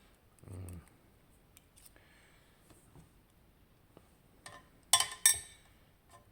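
A few sharp metallic clicks and clinks from the parts of a disassembled Abloy padlock being handled, the two loudest close together about five seconds in.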